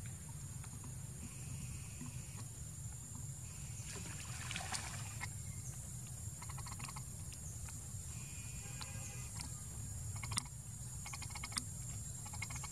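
Outdoor forest sound: a steady high insect drone over a low rumble, with scattered rustling and a few sharp clicks, one about ten seconds in and another a second later.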